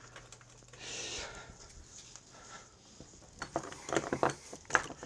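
Quiet handling noise at a workbench: soft rustling, then a run of light clicks and knocks in the second half as parts and hand tools are handled, over a faint steady hum.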